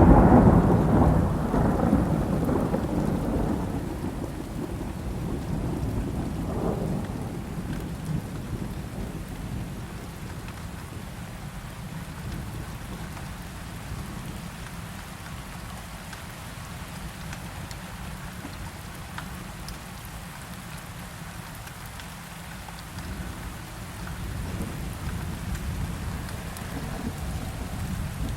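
Thunderstorm with steady rain. A loud peal of thunder rumbles at the start and fades over several seconds, a smaller rumble comes a few seconds later, and low rolling thunder builds again near the end.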